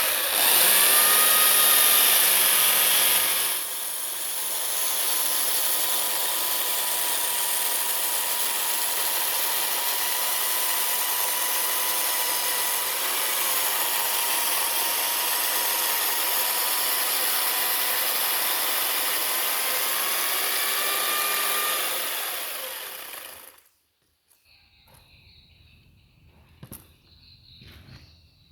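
A power carving tool cutting into wood, with a whining tone that wavers slightly over the steady cutting noise. It is loudest for the first three seconds, runs evenly for about twenty more, then winds down and stops. A few light knocks follow near the end.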